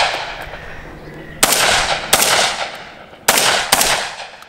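Webley & Scott Web-Tac semi-automatic 12-gauge shotgun firing four shots, in two pairs of quick follow-ups about half a second apart, each shot echoing away. The echo of a shot fired just before is still fading at the start.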